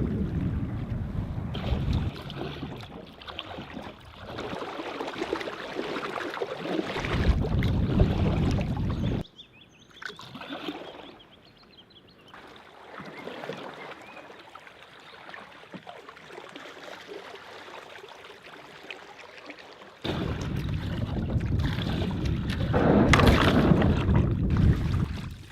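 Water lapping and splashing around a kayak on a lake, with wind buffeting the microphone in loud rumbling stretches. The sound changes abruptly about nine seconds in, where it drops to a quieter water hiss, and again about twenty seconds in, where the wind rumble returns.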